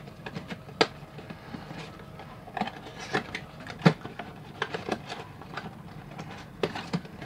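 Small cardboard blind box being opened by hand: the flap is pried up and handled, giving scattered light taps and clicks of card, with rustling of the wrapping inside.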